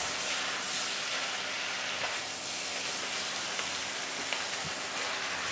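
Flat rice noodles stir-frying in a non-stick wok, a steady sizzling hiss as they are tossed with a spatula, with a few light clicks of the spatula against the pan. The sweet soy sauce has just gone in and is being stirred through.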